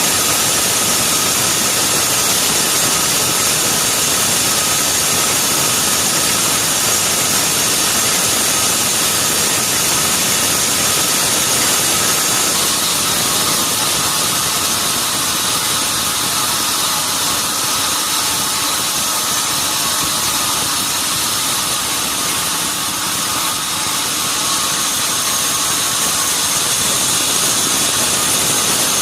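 Sawmill saw machinery running steadily: a continuous loud mechanical noise with a fixed high whine through it.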